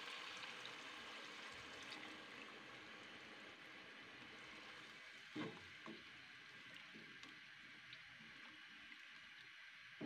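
Chicken stock poured into a hot pot of frying spiced radish, the sizzle dying away over the first couple of seconds as the liquid goes in. Then a spatula knocks twice against the pot as the curry is stirred, about five and a half seconds in.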